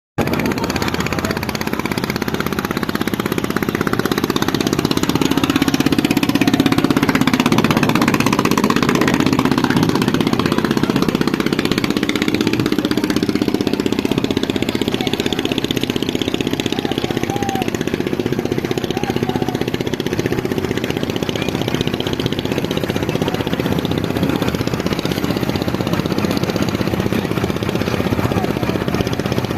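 Speed boat engine running steadily, a little louder a few seconds in.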